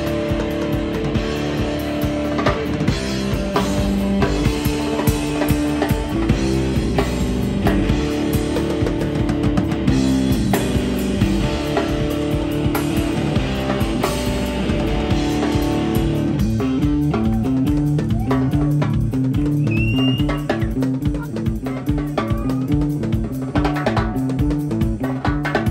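Live rock trio playing instrumentally: electric guitar, electric bass and drum kit. Around two-thirds through, the sound changes to a repeating bass line over the drums.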